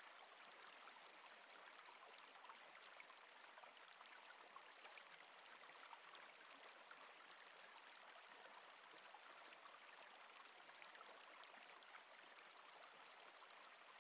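Faint, steady running water, a soft trickling stream ambience laid under a relaxation recording.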